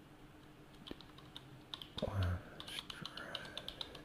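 Computer keyboard typing: a run of quick key clicks as a web address is typed, with a brief louder low sound about two seconds in.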